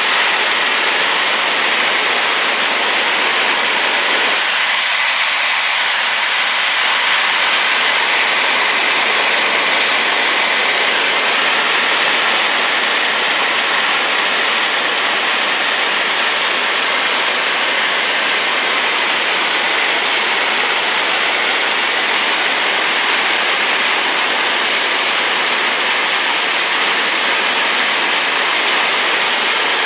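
Waterfall in spate after rain, a loud, steady rushing of falling water.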